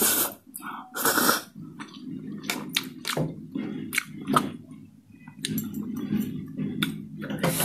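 Close-miked eating of spicy instant noodles: a loud slurp of noodles about a second in and another near the end, with wet chewing and mouth clicks between.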